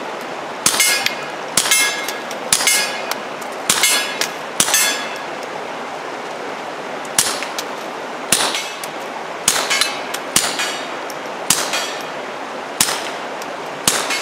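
Taurus TX22 .22 LR pistol firing through a fuel-filter suppressor with standard, non-subsonic ammunition. Twelve suppressed shots, each a sharp crack with a short metallic ring: five about a second apart, a pause of about two seconds, then seven more.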